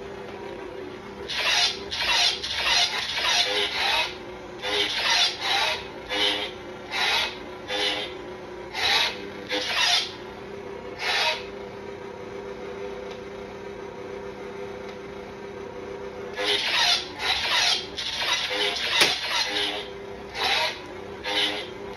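Toy lightsaber's electronic sound effects from its built-in speaker: a steady low hum, with a run of quick whooshing swing sounds as the blade is waved. The swings stop for a few seconds in the middle while the hum goes on, then start again, with one sharp hit near the end.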